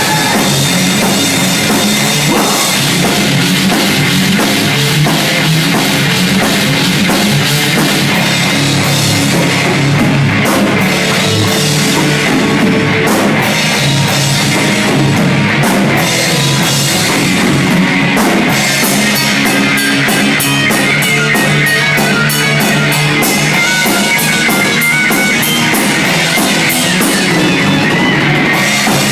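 Heavy metal band playing live: loud distorted guitars over fast, driving drums.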